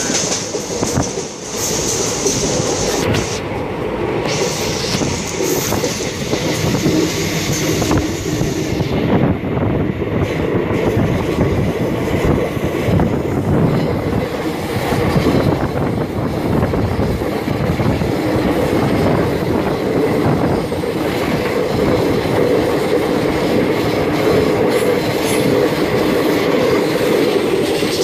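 Express passenger train running, heard from inside a coach: a steady rumble and clickety-clack of wheels over the track, with wheel squeal as the train rounds a curve.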